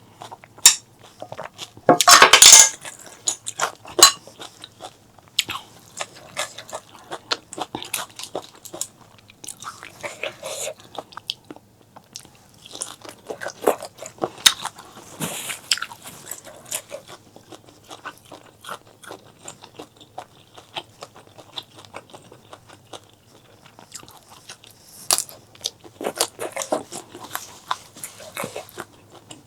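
Close-miked eating sounds: a person biting and chewing crunchy food, with many short crisp crunches and wet mouth clicks. A loud burst of crunching comes about two seconds in.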